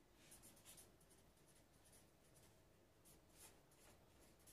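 Faint scratching of a marker writing on brown pattern paper, in a few short separate strokes.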